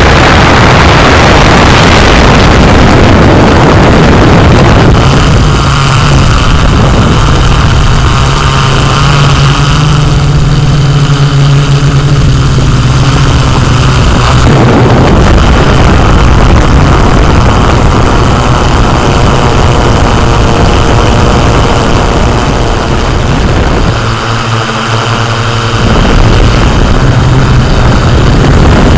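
Yuneec Typhoon Q500+ quadcopter's electric motors and propellers whirring, picked up by the drone's own onboard camera: a loud, steady hum whose pitch shifts slightly a few times as it manoeuvres, dipping briefly near the end.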